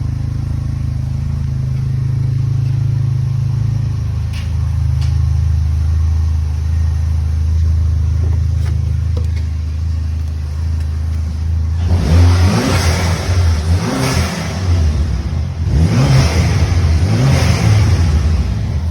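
Chevrolet HHR four-cylinder engine idling steadily, then revved in several quick blips from about twelve seconds in.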